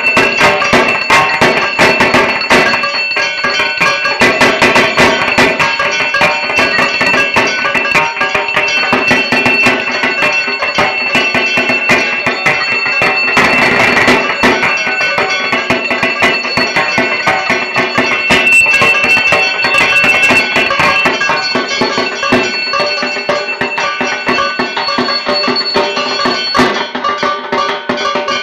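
Dhak, the Bengali barrel drum, played in a fast, dense rhythm, with a steady high ringing tone held over the drumming.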